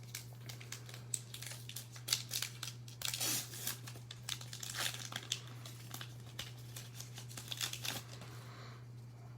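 Plastic wrapper of a baseball card pack crinkling and tearing as it is opened and the cards handled, a dense run of crackles that dies down near the end, over a steady low hum.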